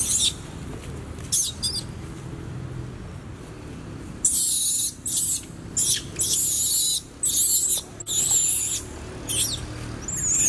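Long-tailed macaques screaming: two short, shrill squeals, then from about four seconds in a run of longer, wavering screams, one after another.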